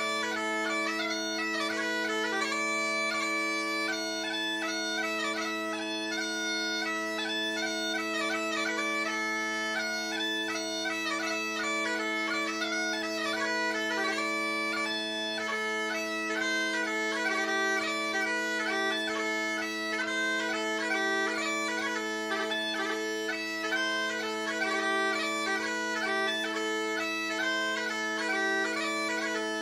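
Great Highland bagpipe playing a pipe tune: the drones hold one steady chord under a fast chanter melody with quick ornaments.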